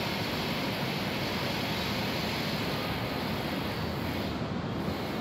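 Steady, distant rumble of city traffic on the multi-lane avenue far below, heard from high up a tower.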